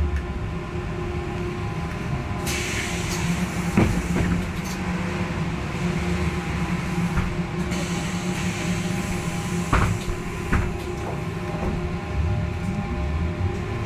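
Interior of a trolleybus in motion: the electric traction drive gives a steady whine over the rumble of the road. There are a few sharp knocks and rattles, about four seconds in and again around ten seconds, and two spells of hiss lasting a second or two. Near the end the whine shifts in pitch.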